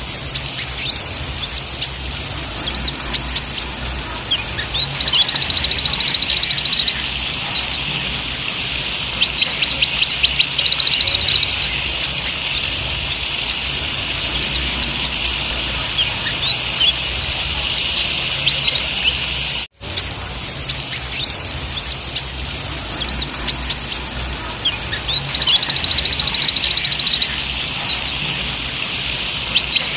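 Kolibri ninja sunbird (konin) song: scattered quick high chirps with a few bursts of a fast, buzzy high trill lasting a few seconds each, over a steady hiss. The audio cuts out for an instant just before the middle and the song starts over, a looped therapy recording.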